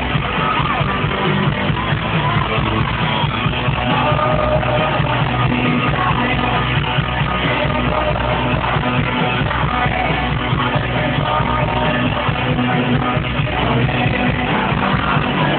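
Rock band playing live in a stadium: electric guitars, drums and sung vocals, steady and loud throughout.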